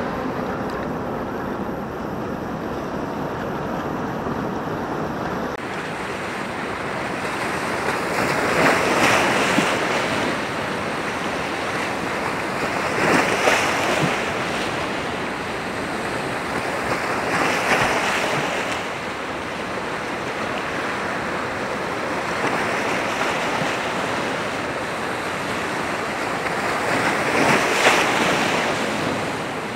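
Sea waves washing and breaking against a rocky breakwater: a steady rush of surf that swells louder four times as bigger waves break.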